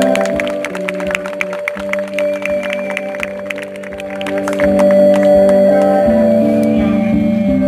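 Background music: held chords that change every second or so, with a quick run of short clicking notes over them in the first half.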